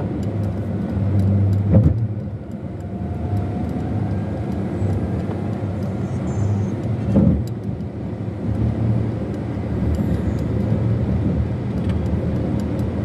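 Steady engine hum and road rumble of a car driving in traffic, heard from inside the cabin. Two short thumps about five seconds apart.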